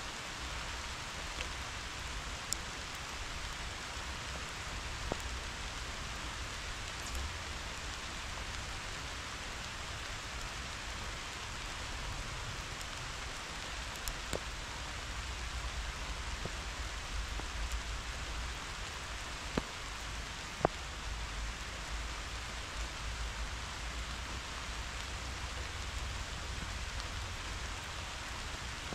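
Steady summer rain falling on meadow grass and wildflowers: an even hiss, with a few sharp ticks of single drops striking close by.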